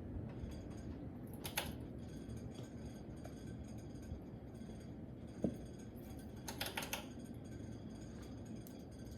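Hampton Bay Brookhurst ceiling fan running with a steady low whoosh, with a few light clicks about a second and a half in and a short cluster of clicks near the end.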